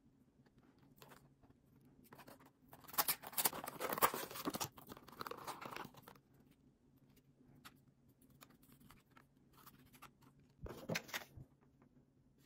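Clear plastic blister packaging being pried open and crinkled as a hairbrush is pulled out of its tray, a few seconds of dense crackling and tearing, with lighter handling clicks after it and a brief rustle near the end.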